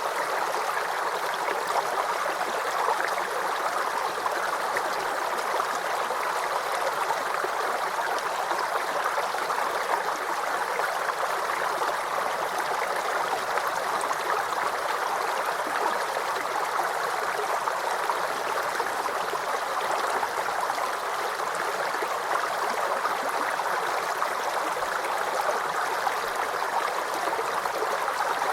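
Small stream or brook flowing and gurgling steadily over stones.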